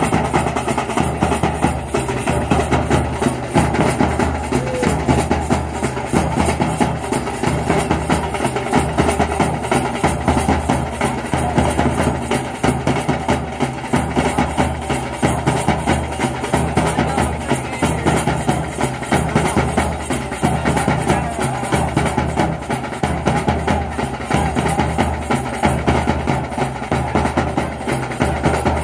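Music driven by drums and percussion, with a steady beat repeating throughout.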